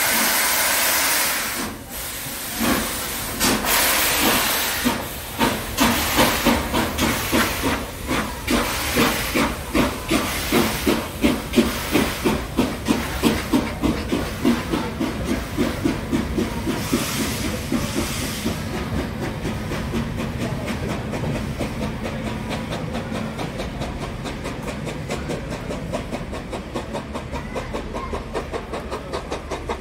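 Steam locomotive starting away: a hiss of steam, then exhaust chuffs begin about two seconds in and steadily quicken. Another brief burst of steam hiss comes about two-thirds of the way through, and the chuffing grows gradually fainter toward the end.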